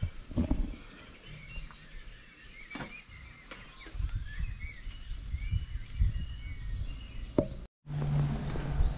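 Insects keep up a steady high-pitched drone while birds chirp, with scattered knocks and low bumps from handling the camera. Just before the end the sound cuts off abruptly and switches to a different street ambience with a low hum.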